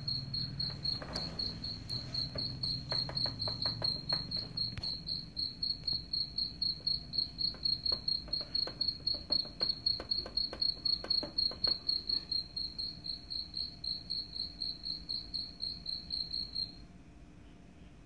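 Recorded cricket chirping played through a smartphone speaker as a rat-repellent sound: a steady run of rapid, evenly spaced high-pitched chirps at one pitch that cuts off suddenly near the end. Scattered sharp clicks sound alongside it in the first part.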